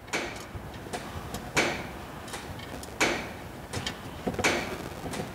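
Tractor's spin-on filter being turned off its long thread by hand: a scraping click with each turn, about every second and a half, with lighter ticks between.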